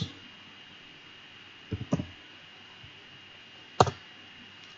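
Computer keyboard keystrokes as a command is typed in: a few quick taps about two seconds in, then one sharper, louder tap a little before the end.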